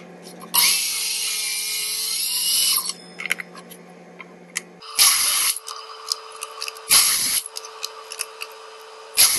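DeWalt miter saw cutting lumber to length: one cut of about two seconds with the motor whining, then three short loud bursts about two seconds apart.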